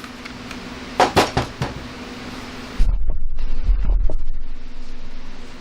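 A few sharp clatters of handling, then a Makita 12 V max CXT cordless reciprocating saw switched on about three seconds in. It runs with a loud low drone that eases off near the end.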